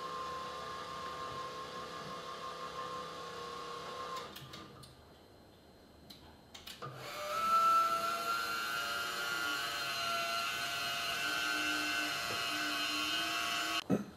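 Electric motor of a Carolift 6900 wheelchair loading crane running as it hoists a power wheelchair into a car's boot: a steady whine for about four seconds, a short pause with a couple of clicks, then a louder whine from about seven seconds in, falling slightly in pitch and stopping near the end.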